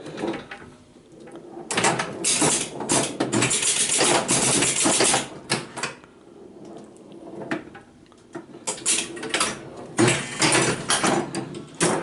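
1968 Gottlieb Domino electromechanical pinball machine in play: rapid mechanical clattering of relays, score reels and bumper and flipper hits. It comes in two dense bursts, about two to five seconds in and again from about nine seconds in, with quieter stretches between.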